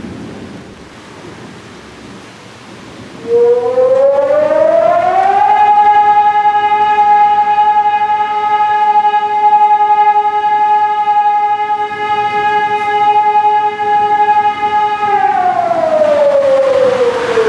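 Outdoor warning siren winding up to a steady wail a few seconds in, holding one pitch for about ten seconds, then winding down near the end, over the hiss of heavy storm rain.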